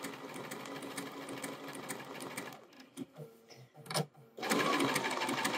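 Bernina 570 sewing machine running slowly, sewing a triple stitch: a steady run of fast needle strokes. About two and a half seconds in it stops for about two seconds, with a few light clicks, then starts up again a little louder.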